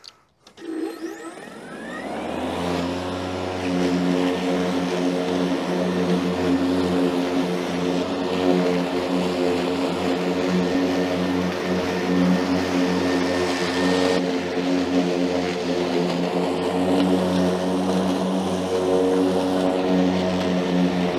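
AS Motor AS 510 E ProClip battery mulching mower switching on, its motor and blade spinning up with a rising whine over the first couple of seconds. It then runs at a steady full-speed hum as it cuts long grass.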